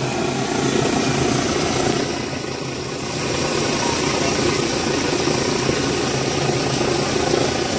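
A steady low mechanical drone with a hiss over it, like an engine running.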